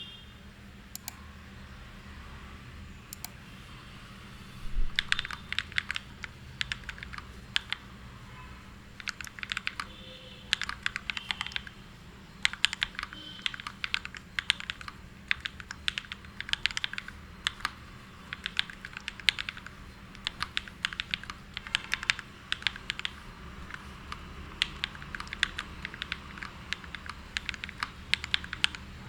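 Typing on a mechanical keyboard fitted with Akko CS Matcha Green switches. Only a few single key clicks come in the first seconds. From about five seconds in, fast runs of keystrokes follow with brief pauses between them.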